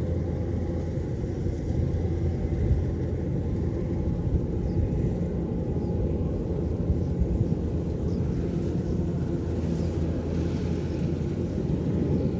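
Kubota DC-105X combine harvester running steadily as it drives through the field cutting rice: a continuous low engine rumble with a steady hum.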